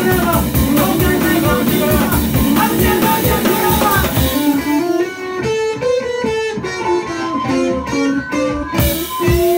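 Live indie-punk band playing electric guitars and drum kit. About halfway through, the cymbals and steady beat drop away, leaving picked guitar notes with a few drum hits, and a long held guitar note near the end.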